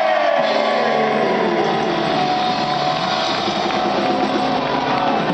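Live rock band playing, with a singer on vocals. A sliding note falls steadily in pitch over the first second or so, then the full band carries on.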